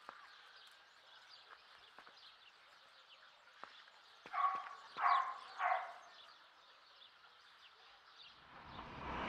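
A dog barks three times in quick succession, about four and a half seconds in, over a quiet background with faint scattered ticks. Near the end a rising whoosh swells up.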